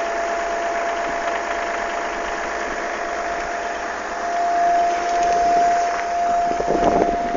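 Audi A6 V6 TDI diesel engine running with a steady high-pitched whine over a fast clatter of ticks: the strange engine sound the owner is querying. It gets louder a few seconds in, with a short rush of noise near the end.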